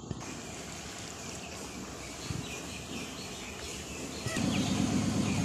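Outdoor yard ambience with faint, scattered high bird chirps. About four seconds in, a louder, steady low rumble starts and keeps going.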